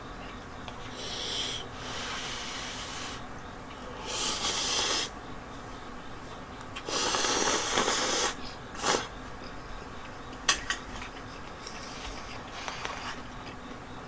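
Person slurping cup ramen noodles in several long, hissing slurps, the loudest about seven to eight seconds in. A few sharp clicks follow.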